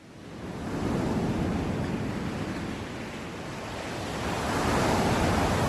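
Heavy rain pouring down, a steady rushing hiss that fades in at the start and grows louder about four seconds in.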